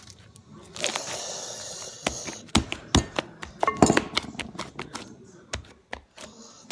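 Slime being squeezed and stretched in the hands, giving a run of irregular sharp wet clicks and pops, with a denser crackling stretch about a second in.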